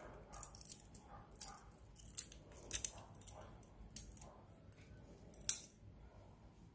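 Small, sharp metallic clicks and clinks at irregular intervals from a hinged silver cuff bracelet being worked at its hinge, slipped off the wrist and set down; the sharpest clink comes about five and a half seconds in.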